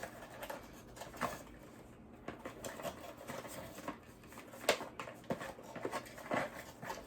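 Scattered rustles and small clicks from an item and its packaging being handled, with sharper clicks about a second in, near five seconds and near six and a half seconds.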